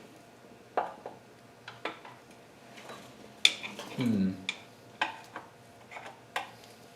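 Hand tools clinking and tapping on metal while working at a stuck upper oil pan on a Nissan KA24DE engine: scattered sharp clicks, with a louder clank about three and a half seconds in and a brief low falling sound just after it.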